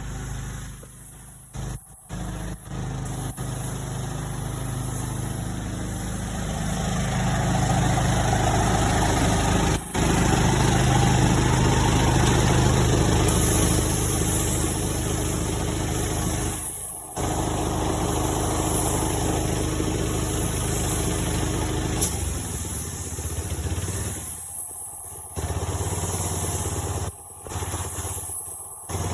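A motor vehicle's engine running steadily. It grows louder from about a fifth of the way in, and the sound drops out abruptly several times for a moment.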